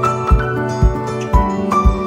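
Background music: light plucked-string melody over a steady beat of about two low thumps a second.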